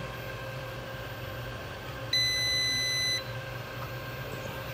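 A single steady electronic beep, about a second long, starting about two seconds in, over a steady low hum.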